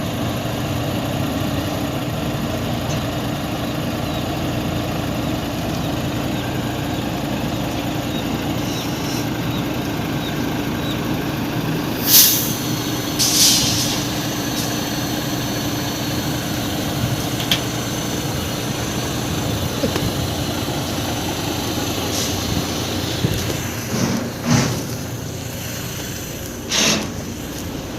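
Heavy diesel engine running steadily, with two short, sharp air hisses a little before halfway, like a truck's air brakes releasing. A few knocks and clanks come near the end.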